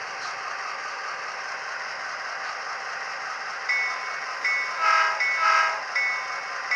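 Soundtraxx Tsunami sound decoder in an HO-scale GP38 model, playing an EMD diesel running steadily through its small speaker. About three and a half seconds in, the locomotive bell starts ringing at an even beat. A second later come two short horn blasts, the signal a locomotive gives before moving forward.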